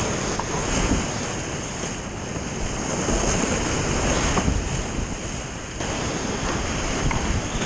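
Rushing whitewater of a steep river rapid, heard close up from a kayak running it. The loud, even rush surges up and down, with water and wind buffeting on the microphone.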